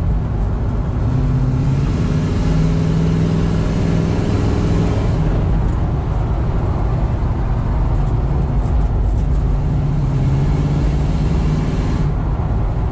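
1970 Chevrolet C-10's 350 V8 with headers and dual Flowmaster-style exhaust running under way, heard from inside the cab over steady road and tyre noise. The engine note swells twice, about two seconds in and again about eight seconds in.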